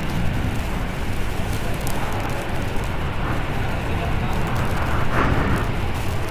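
MV Agusta F4's inline-four engine running steadily at low revs as the motorcycle rolls slowly at walking pace.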